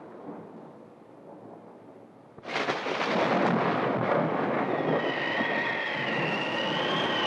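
Thunderstorm sound: low thunder rumbling, then about two and a half seconds in a sudden, loud rush of storm noise cuts in and holds, with a wavering whistle on top from about five seconds in.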